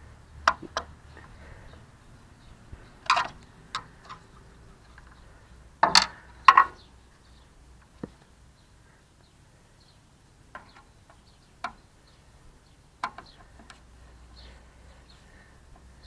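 Scattered, irregular clicks and taps of a screwdriver and screws as a turn-signal lens is screwed into a car's bumper, a few louder knocks about six seconds in.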